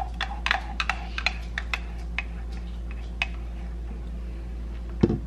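A spoon clicking and scraping against a metal milk-frother jug while scooping cold foam onto a drink: a quick run of light clicks that thins out over the first three seconds, over a low steady hum. One loud knock comes about five seconds in.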